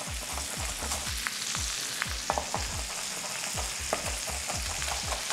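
Blue swimmer crab frying in a pan with a steady sizzle, while a knife chops fresh coriander on a wooden board in quick, repeated knocks, a few a second.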